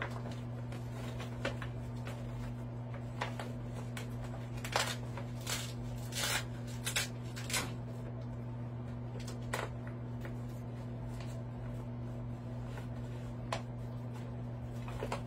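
Scattered rustles and crinkles from a fabric hanging wall organizer being handled, with a cluster of louder ones around five to eight seconds in. A steady low hum runs underneath.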